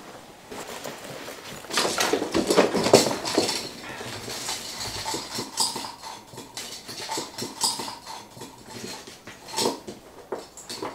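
Clothing rustling, then pens and pencils clicking and knocking against each other and a ceramic cup as a hand rummages through them, a run of small irregular clatters.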